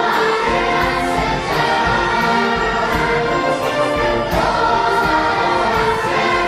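A large children's choir singing held, sustained notes with an orchestra.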